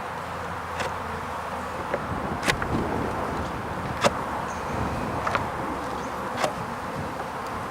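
Honeybees buzzing around an opened hive, with a few sharp clicks spread through.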